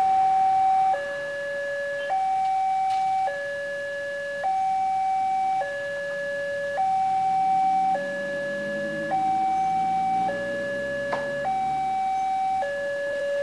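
Railway level-crossing electronic warning alarm sounding from its horn speaker: two steady tones alternating, high then low, each held a little over a second, signalling that a train is approaching and the barrier is closing. A vehicle engine passes faintly under it near the end.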